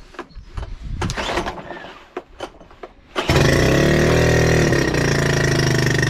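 Honda BF2.3D air-cooled four-stroke outboard being pull-started on choke: a few knocks and clatter, then about three seconds in it catches and runs steadily at high revs. This is the first start after its carburettor was cleaned of gummed fuel, water and corrosion.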